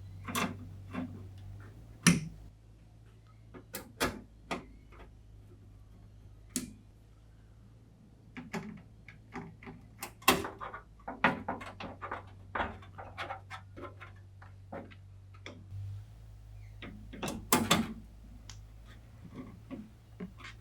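Hands handling and fitting PC components: a scattered series of sharp plastic and metal clicks, taps and knocks, busiest about halfway through, over a steady low hum.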